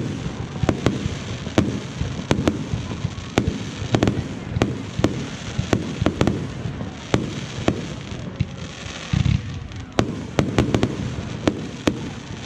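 Fireworks display: shells bursting in quick, irregular succession, sharp bangs over low rumbling booms, several a second, thinning out near the end.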